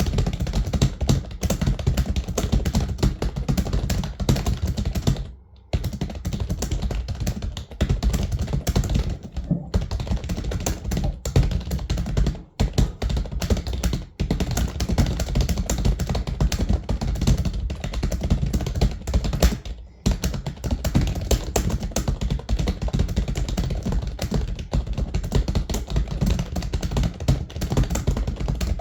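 Computer keyboard being typed on fast and continuously, a dense run of key clicks with brief pauses of a fraction of a second now and then.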